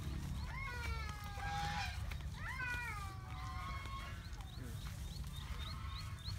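Two drawn-out animal cries, each sliding up and then down in pitch, about half a second and two and a half seconds in. From about halfway, a run of short high chirps repeats about three times a second over a steady low rumble.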